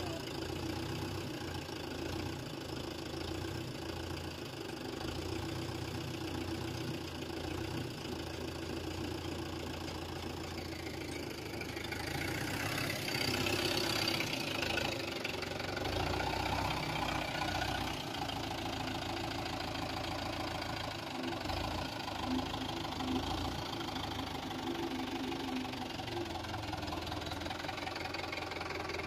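Mahindra Yuvo tractor's diesel engine running steadily, with a stretch of higher revs about halfway through, as it works to pull itself and a loaded trolley out of a muddy ditch.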